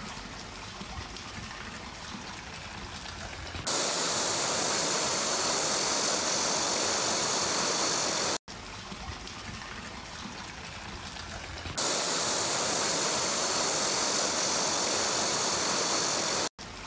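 Rushing floodwater: a steady hiss of fast-flowing muddy water. It is quieter at first, jumps louder about four seconds in, and after a sudden cut a quieter and then a louder stretch follow.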